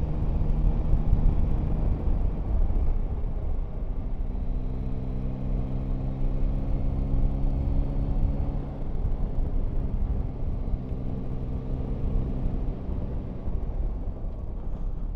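Yamaha Tracer 9 GT's three-cylinder engine pulling on the open road, heard from the bike with low wind rumble underneath. The engine note changes about three seconds in, holds steady and rises slightly, then dies away near the end.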